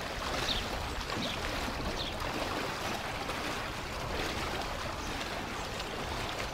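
Floodwater swishing and sloshing around the legs of rescuers wading knee-deep beside an inflatable rescue boat, a steady watery rush. A few short high chirps sound in the first couple of seconds.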